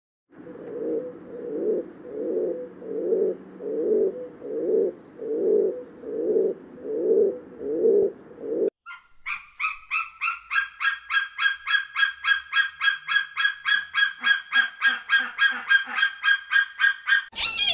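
Rock pigeon cooing: a low coo repeated about once every three-quarters of a second for about eight seconds. Then a bird of prey calls in a fast run of sharp, high notes, about four a second, which steps up in pitch about two seconds in. A different, louder call begins right at the end.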